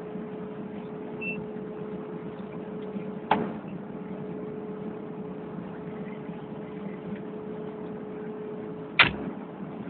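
Kubota KX080 excavator's diesel engine running steadily, picked up through a phone fixed to the machine, a constant hum with one held tone. A sharp knock about three seconds in and a louder one near the end.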